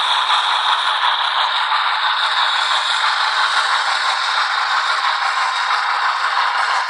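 Sound-equipped H0 model of a Br 96 (Bavarian Gt 2x4/4) Mallet steam locomotive running, its small onboard loudspeaker playing the decoder's steam sound over the rattle of the model on the track: a steady, unbroken hiss and rattle.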